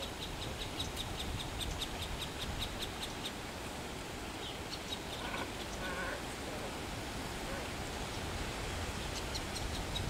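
A small bird chirping in a rapid run of short, high notes, about four or five a second, over a steady low outdoor background noise. The run stops about three seconds in, a few scattered calls follow, and a short run comes again near the end.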